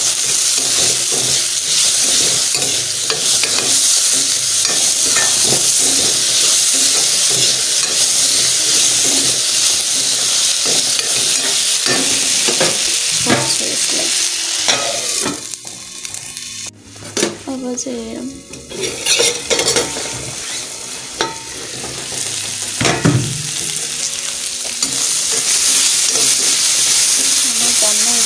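Vegetables frying in hot oil in a pan, a steady sizzle, with a spoon stirring and scraping against the pan. The sizzle fades for a few seconds a little past the middle, then comes back.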